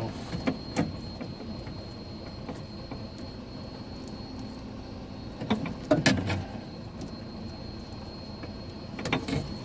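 Scattered knocks and plastic clicks from handling the cut-open door panel, loudest in a cluster about six seconds in, over a faint steady high whine.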